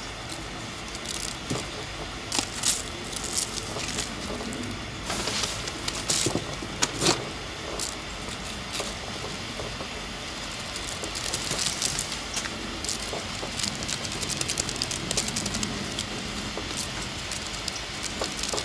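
Gloved hands pressing loose brown sugar onto a honey-coated ham on a foil tray: scattered soft crackles and rustles over a steady background hiss.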